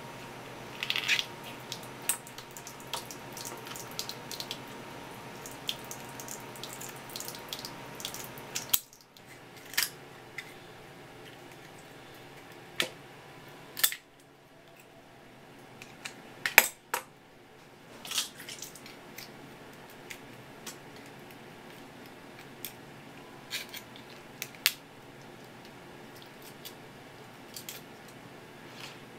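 Tap water running for the first nine seconds or so, then shut off. Kitchen shears then snip and crack through swimming-crab shell in sharp single clicks every few seconds.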